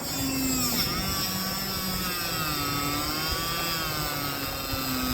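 A small high-speed motor tool running, its whine dipping in pitch about a second in and then wavering up and down, as the motor's speed changes under load.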